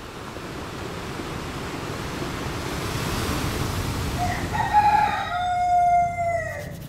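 Surf washing on the beach, then about four seconds in a rooster crows: a run of notes ending in one long drawn-out note that falls away at the end.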